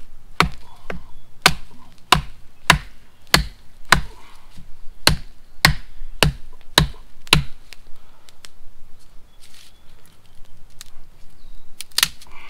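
A blade chopping into wood: about a dozen sharp strokes, a little under two a second, then a pause and one more stroke near the end.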